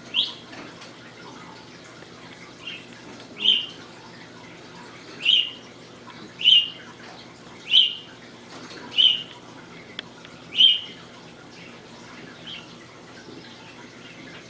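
English budgie repeating its learned imitation of a fart sound: a short call about seven times, roughly one a second, with a couple of fainter ones between and after.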